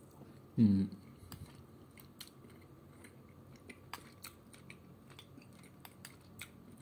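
A person chewing, with small clicks of a metal spoon against a tin can of tuna in soup. A short voiced 'mm' falls in pitch just under a second in.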